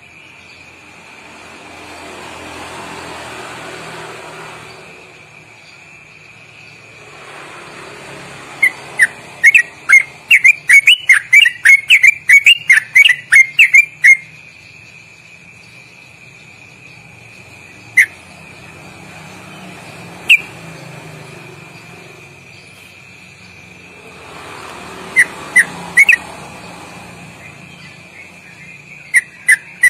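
Yellow-vented bulbul (trucuk) song: a long burst of loud, rapid chattering notes, about four a second, from about 9 to 14 seconds in (the 'ropelan' that bird keepers prize), then single notes near 18 and 20 seconds and a short pair near 26 seconds. A steady high tone runs underneath, and traffic noise swells and fades several times.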